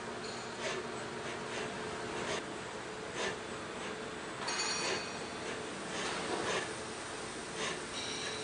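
Chevalier QP1620L vertical machining center running: a steady machine hum with short hissing swishes roughly once a second.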